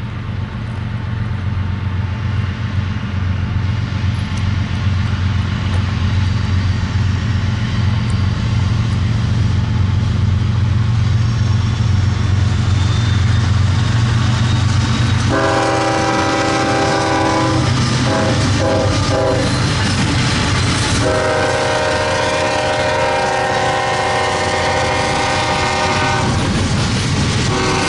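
A train's locomotive engine rumbles steadily, growing louder as it approaches. Its horn then sounds in two long blasts, the first starting about halfway through and the second running nearly to the end.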